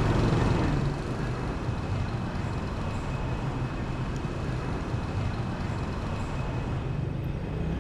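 Steady urban road traffic noise, a constant rumble of passing vehicles, with a faint steady high tone running through it.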